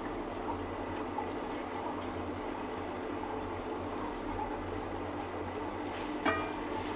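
Water boiling steadily in a cooking pot, as eggs are boiled. About six seconds in, a single metal clink rings out briefly.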